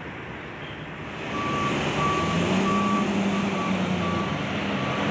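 Backup alarm on heavy demolition machinery beeping at a steady pace, starting about a second in, over the running diesel engine of the excavator, which grows louder at the same moment.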